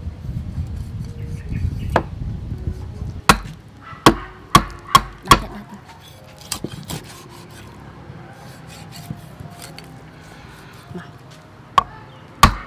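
A meat cleaver chopping through a whole fish into steaks and striking a wooden chopping board: a quick run of five sharp chops a few seconds in, a few lighter taps, then two more chops near the end.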